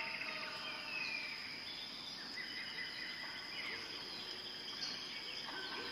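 Jungle ambience: a steady high-pitched insect drone, with scattered bird whistles and chirps, some of them falling in pitch.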